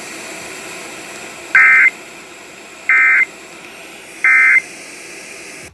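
Emergency Alert System end-of-message signal: three short bursts of screechy digital data tones (SAME code), about 1.4 s apart, with faint broadcast hiss between. The bursts mark the end of the relayed monthly test alert.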